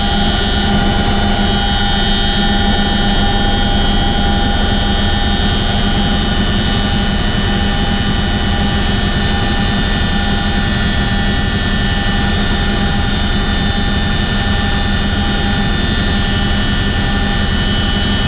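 Cabin noise of a tandem-rotor CH-47 Chinook helicopter in flight: engines, rotors and transmission make a loud, steady drone with a constant whine over it. A higher hiss comes up about four and a half seconds in.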